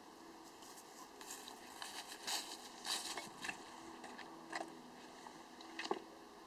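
Faint rustles and light knocks of a person handling a Honda CRF450R dirt bike on its stand and climbing onto it, with the sharpest knock near the end as he swings a leg over; the engine is not running.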